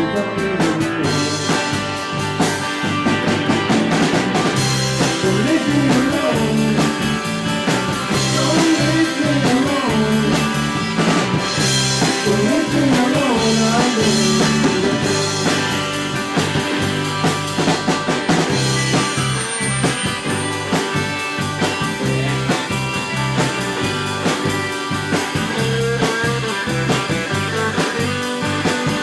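Rock band playing in a blues-psychedelic style: guitar lines with bending notes over a steady drum kit beat.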